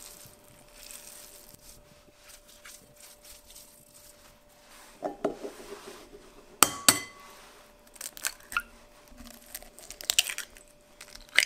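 White cheese crumbled by hand into a glass bowl with soft crumbling, then eggs tapped and cracked against the glass bowl. About two-thirds through come two sharp taps with a brief glassy ring, the loudest sounds here, and further taps and cracks follow near the end.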